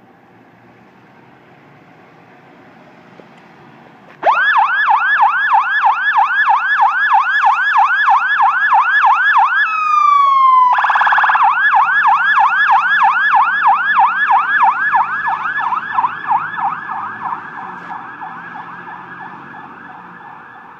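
Fire pumper truck's siren switching on suddenly about four seconds in, in a fast yelp of about four rising-and-falling sweeps a second. Around ten seconds in the tone drops and a short horn blast sounds, then the yelp resumes and fades as the truck drives away.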